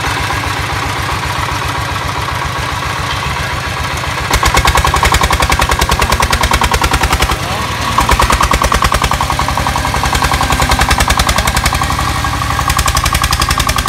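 Single-cylinder diesel engine of a công nông farm cart chugging at idle, then opening up about four seconds in to louder, rapid, even exhaust beats as it pulls away hauling a load of firewood logs. The beats briefly drop off about seven seconds in before picking up again.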